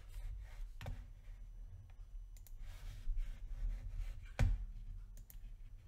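A few sharp computer mouse clicks, the loudest about four seconds in, over a low steady hum.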